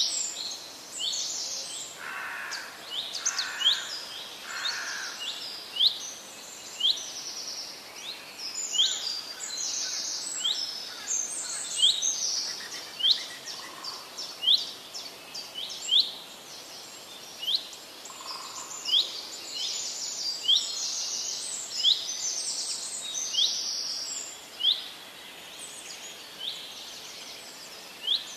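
Forest birds calling: a high, quick rising chirp repeated about once a second, with a few fainter lower calls in between.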